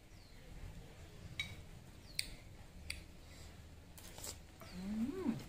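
Eating sounds: a metal spoon clicking a few times against the bowl and teeth as a piece of sour fruit in fish-sauce dip is eaten, then a short hummed 'mm' that rises and falls in pitch near the end.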